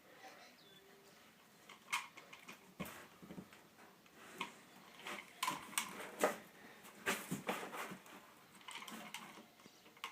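Irregular clicks, taps and short scrapes of hand work on a window screen frame while rubber spline is pressed into its groove with a spline tool. The sounds are densest in the middle and thin out near the end.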